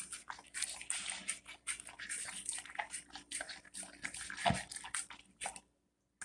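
A dog eating soft cooked dog food, a quick, irregular run of wet smacks and licks, with one heavier bump about four and a half seconds in. The sound cuts off suddenly shortly before the end.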